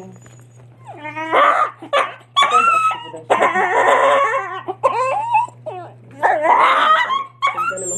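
Poodle–shih tzu mother dog whining and crying in a run of rising and falling yelps while straining in labour to deliver a puppy. The cries start about a second in.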